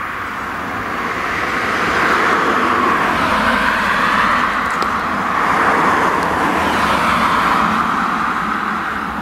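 Fendt tractor running while it pulls a working two-rotor side-delivery hay rake past. The sound swells, peaks in the middle and fades near the end.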